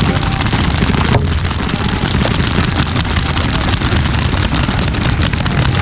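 Many paintball markers firing at once in a dense, continuous crackle of overlapping pops, over a steady low rumble.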